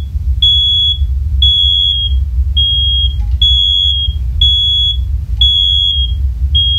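Two First Alert OneLink hardwired smoke alarms in test, sounding a high steady beep about once a second, each beep starting with a click. They are muffled by being held under a leg, and there is a steady low rumble beneath.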